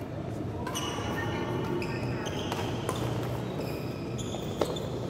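Badminton play: court shoes squeaking on the floor in short chirps, with sharp racket-on-shuttlecock hits, the loudest about four and a half seconds in.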